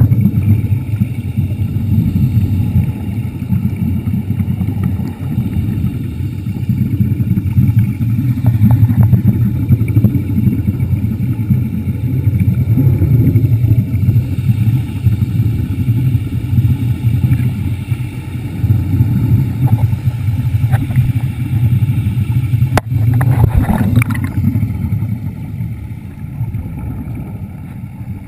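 Steady low rumble of an underwater scooter running, heard underwater, with a single sharp click late on.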